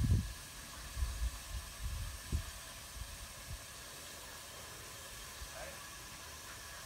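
Irregular low rumbles of microphone buffeting for the first two and a half seconds or so, then a steady hiss.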